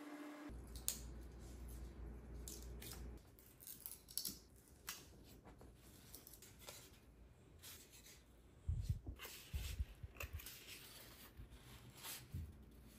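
Hobby knife cutting and scraping thin white craft sheet on a tabletop: irregular short scratchy strokes and small clicks, with a few dull knocks from the pieces being handled against the table partway through.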